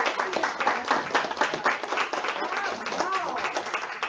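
Audience applauding, a dense run of many hands clapping.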